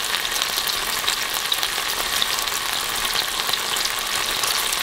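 Chicken thigh sizzling in oil and its dark soy-based marinade in a nonstick frying pan: a steady, dense crackle of small pops as the glaze bubbles.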